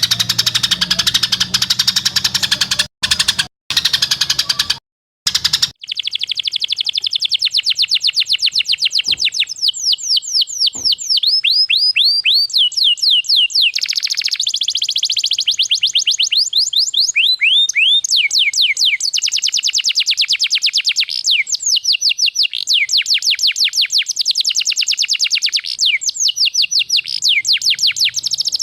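Recorded songbird song for bird-training: fast, unbroken trains of short, sharp repeated notes, cut by a few abrupt silent gaps in the first few seconds, then rapid runs of high sweeping whistles repeated many times a second.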